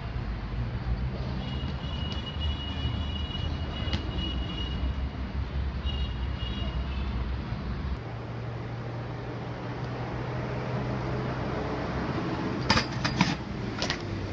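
Steady outdoor street and traffic rumble with a low hum. A few sharp knocks come near the end.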